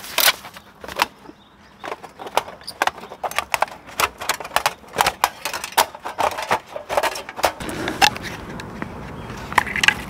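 Quick metal clinks and knocks as a folding steel fire box is put together and its base plate is laid into the frame. After about seven and a half seconds the knocking gives way to a denser, rougher scraping.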